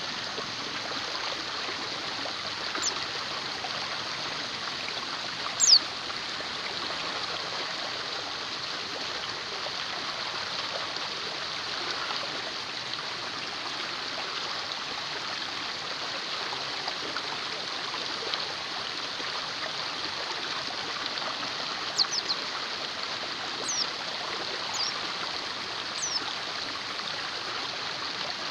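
Steady rush of a flowing stream, with a few short, high chirps of a small bird that fall quickly in pitch, scattered through it, most of them near the end.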